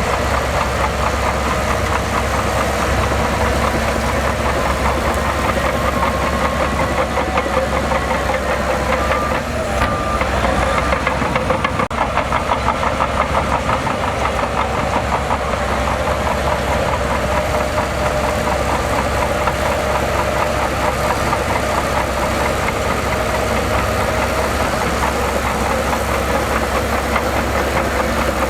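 Heavy diesel engine of earthmoving machinery running steadily with a rapid knocking clatter, dipping briefly about ten seconds in.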